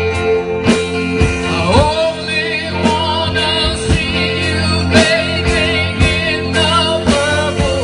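Live band playing a song, with electric guitar, bass and a steady drum beat; a lead singer comes in about two seconds in, sliding up into the first note.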